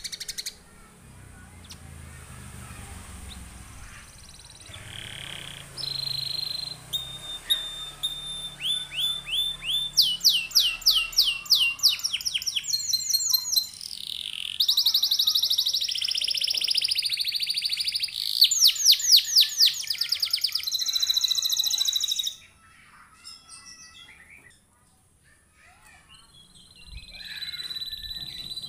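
Domestic canary singing a long song of fast rolling trills and rapid repeated high notes. The trills grow louder and denser through the middle, break off about three-quarters of the way in, then resume near the end.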